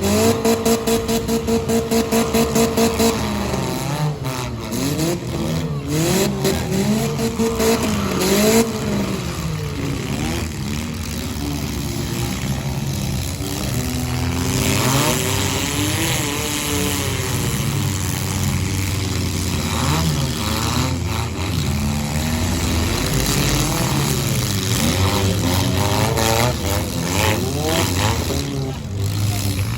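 Several four-cylinder demolition derby cars running and revving, engine pitch rising and falling over and over. For the first three seconds one engine holds a steady high note with a fast pulsing beat, like an engine held against its rev limiter.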